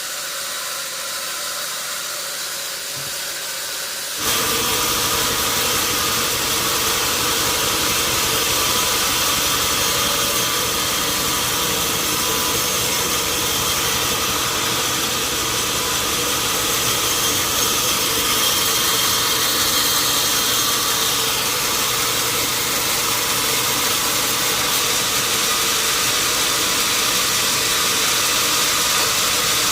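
Sawmill machinery running steadily, a loud hiss with a steady hum underneath. It jumps abruptly louder about four seconds in and then holds level.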